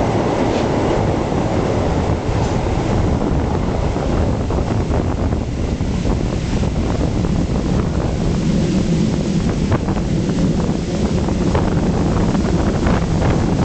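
Passenger train running along the line, wheels clattering with frequent sharp clicks from the rails, under heavy wind rush on a microphone held at the open window.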